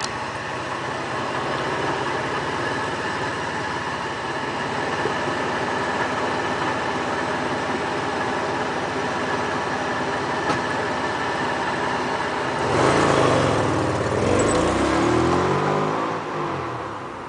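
Mitsubishi 3000GT's V6 engine idling on its stock exhaust, then revved once near the end, the pitch climbing and falling back to idle. The owner suspects an exhaust leak, perhaps at the front.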